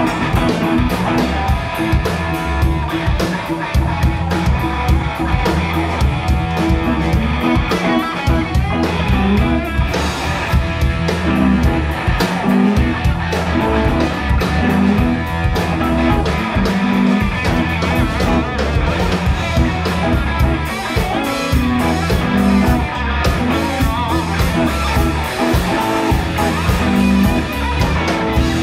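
Live blues-rock band playing: two electric guitars over bass guitar and a drum kit, loud, with a steady beat.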